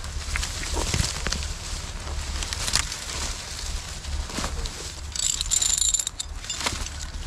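Skidding chain clinking and rattling as it is wrapped around a felled beech log, with a denser rattle a little past the middle. Dry leaves crunch underfoot, over a steady low rumble.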